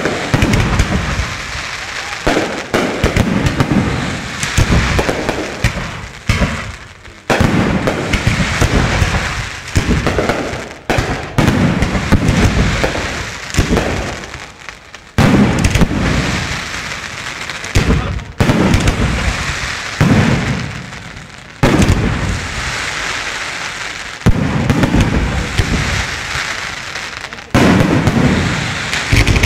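Aerial firework shells bursting one after another, a loud bang every second or two, each dying away over a second or so into the next.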